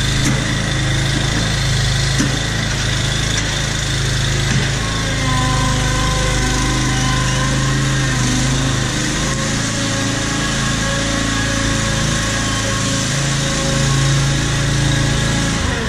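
Small gasoline engine of a stand-on Z-Plug lawn aerator running steadily as the machine is driven across a concrete floor.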